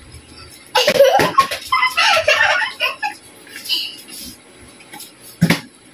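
Giggling and laughter for a couple of seconds, then a single sharp knock near the end.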